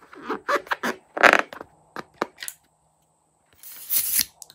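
A rubber balloon filled with liquid being handled and squeezed, giving a run of short rubbing and squeaking noises. About three and a half seconds in, a longer scissors cut is heard, then a sharp click near the end.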